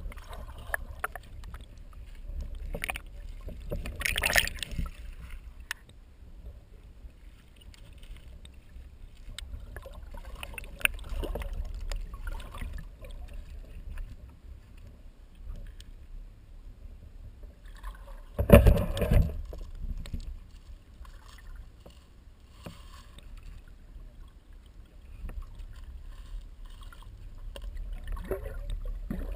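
Water splashing in irregular bursts, loudest about four seconds in and again at about eighteen to nineteen seconds, over a low wind rumble on the microphone.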